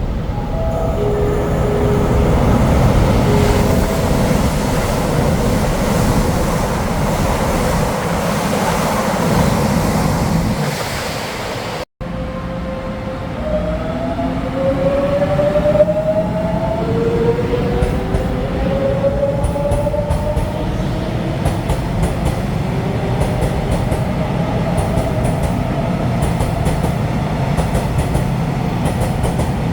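Electric multiple-unit train running through the station with a steady rumble. After a brief cut about twelve seconds in, an electric train pulls away with a rising traction-motor whine in several climbing tones as it accelerates.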